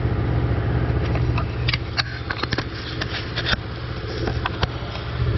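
A steady low machine hum, with a run of sharp clicks and light knocks in the middle, like parts or tools being handled under the truck.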